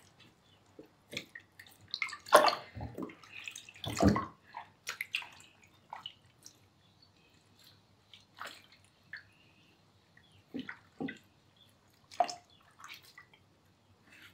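Water splashing and dripping in a bathroom sink as a wet kitten is washed and its face wiped with a wet cloth: scattered short splashes, the loudest about two and a half and four seconds in.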